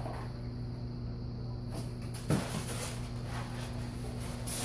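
A single soft thump about halfway through, over a steady low hum, with rustling starting near the end.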